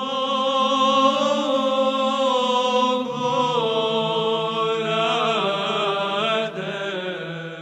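Orthodox monastery choir singing chant: long, held sung notes moving slowly in pitch over a low sustained note.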